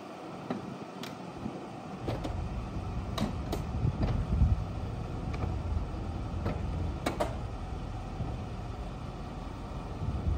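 Mercedes-Benz R129 SL500's electro-hydraulic soft top closing: a steady low mechanical run with a series of clicks and clunks as the top frame comes down onto the windshield and latches, the sharpest about seven seconds in.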